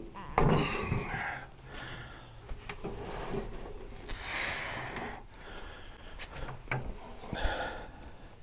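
A benchtop bandsaw being shifted and set down on a wooden table top: scrapes and several sharp knocks, mixed with a few hard, noisy breaths from the effort.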